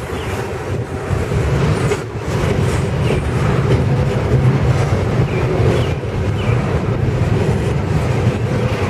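Double-stack container well cars of a freight train rolling steadily past close by: a continuous heavy rumble of steel wheels on rail with clatter.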